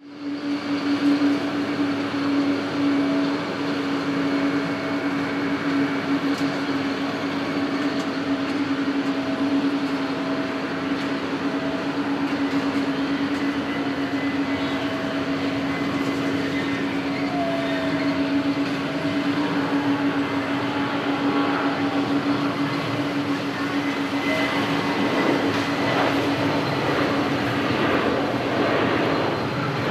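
Boeing 737-700's CFM56-7B turbofan engines at takeoff thrust as the airliner accelerates down the runway: a steady jet roar with a held low hum, growing rougher near the end.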